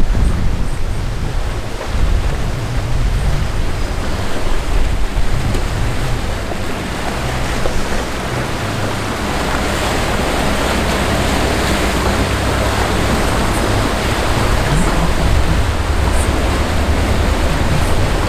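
Rough canal current churning in standing waves, with wind buffeting the microphone; the rush of water grows fuller about halfway through.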